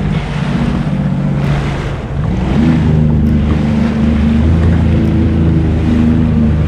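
Jet ski engine running, its pitch low at first, then climbing about two seconds in and holding steady. Water rushes against the hull and wind hits the microphone.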